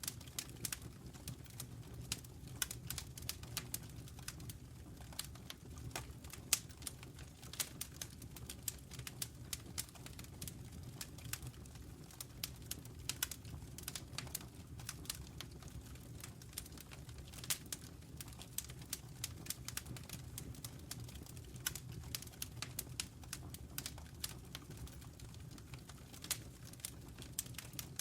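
Wood fire crackling in a fireplace: frequent irregular pops and snaps over a low, steady rumble of the flames.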